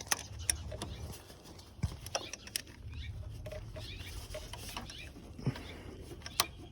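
Irregular light clicks and taps of an open-end 10 mm wrench on the bolt of a power steering inlet hose as it is snugged down, over a faint low rumble of handling.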